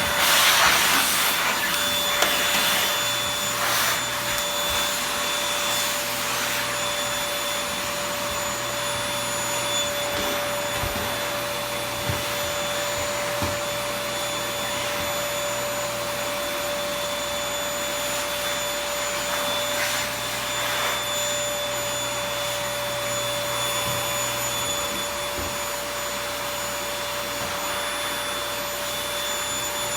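Toshiba VC-PB9 vacuum cleaner running steadily: a constant motor whine over the rush of air, swelling briefly now and then.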